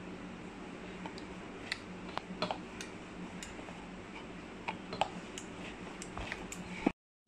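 Scattered light clicks and taps of hands pressing a floured dough ball flat on a wooden board, then a rolling pin working the dough, over a steady low hum. The sound cuts off suddenly for a moment near the end.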